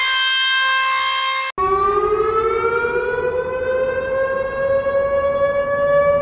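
A steady siren tone with several overtones cuts off about a second and a half in. A civil defense siren then starts winding up, its pitch rising slowly.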